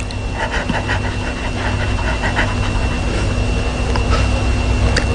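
Pomeranian panting in quick, even breaths, about five a second, over a steady low hum.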